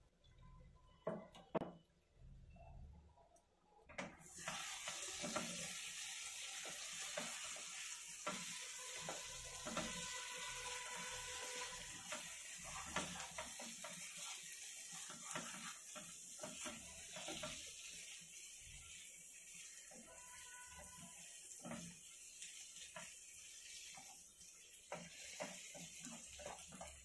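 A few soft knocks, then from about four seconds in a steady sizzle of onion-tomato masala frying in a nonstick kadai. Over it the wooden spatula scrapes and stirs as boiled eggs and potatoes are turned in the masala.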